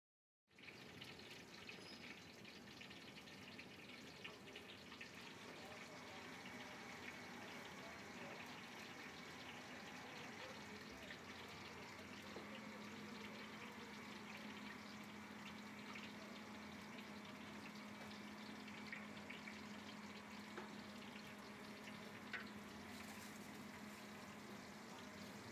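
Hot cooking oil in a large aluminium pot giving a faint, steady sizzle with small crackles, and a low steady hum coming in about halfway. Near the end, a brief louder hiss as sliced onions are tipped into the oil.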